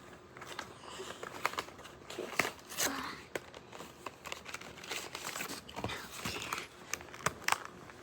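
Packaging of a Pokémon card theme deck crinkling and tearing as it is being opened, with irregular crackles and snaps.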